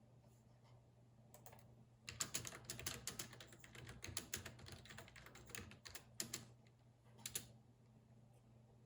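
Computer keyboard typing: a few isolated keystrokes, then a quick run of typing for about four seconds, then a couple of single key presses near the end.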